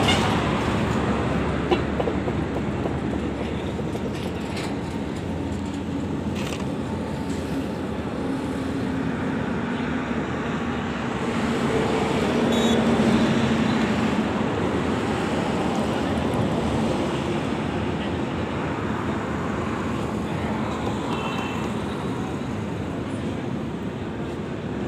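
Steady road traffic noise, with a vehicle engine passing louder around the middle and a few faint clicks.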